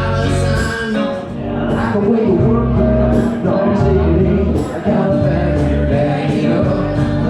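Background music: a song with singing over a steady bass and beat.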